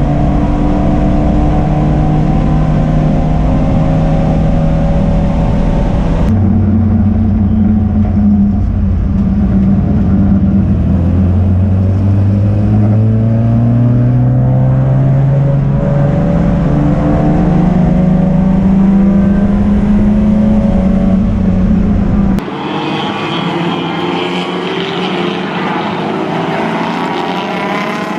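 Race car engine running hard on track, its pitch climbing slowly as it accelerates. The sound is cut off abruptly twice, about six seconds in and near twenty-two seconds, and the last part carries more wind-like noise and less low engine note.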